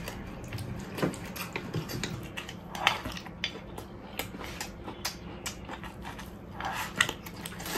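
Wooden chopsticks clicking and scraping against a ceramic plate of rice, with the mouth noises of someone eating from it. Scattered small taps run throughout, and there are a few louder short eating sounds about three and seven seconds in.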